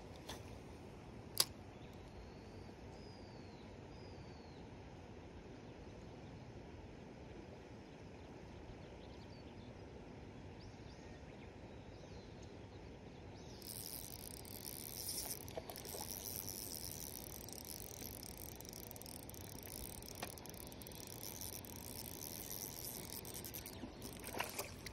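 Spinning reel winding in line as a hooked trout is played to the net. A steady high whirring starts about halfway through, breaks off briefly, and stops just before the end. A single sharp click comes about a second and a half in.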